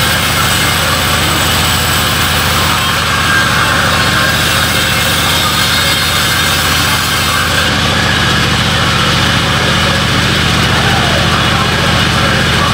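Vertical band sawmill running, its belt-driven blade sawing lengthwise through a large log: a steady machine hum under a dense hiss of the blade in the wood. The highest part of the hiss dims about eight seconds in.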